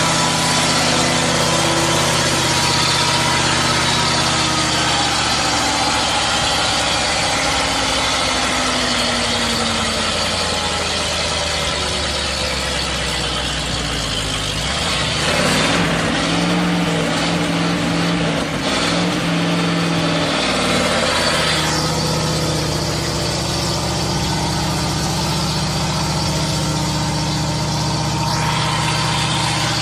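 Ural truck's engine running steadily, revved up and down three times in quick succession about halfway through, then settling back to a steady run.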